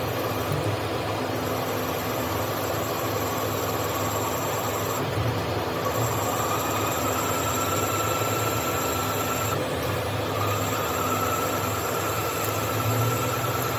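CNC machine drilling with a large drill: a steady machining noise with a faint, slightly rising squeal that drops out briefly about two-thirds of the way through and then comes back.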